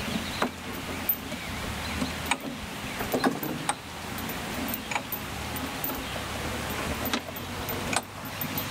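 Scattered knocks and clicks from a playground climber's hanging plastic panels and metal fittings as a child climbs across them, over a steady background hiss.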